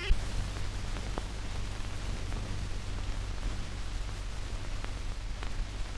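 Steady hiss and low hum of an old film soundtrack, with a few faint clicks, one right at the start and another about a second in.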